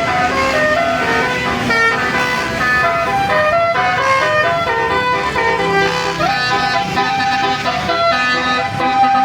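An Indonesian bus's 'telolet basuri' multi-tone air horn playing a fast melody of short stepped notes, over the noise of the running bus and traffic.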